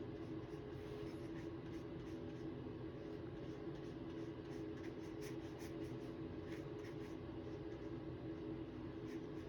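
Faint, scratchy strokes of a paintbrush on sketchbook paper over a steady low room hum.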